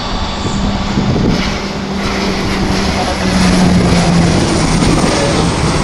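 Embraer EMB-314 Super Tucano's turboprop engine and propeller droning as the aircraft passes low on approach with its gear down. The sound is loudest in the middle, as it goes by, and its pitch drops slightly.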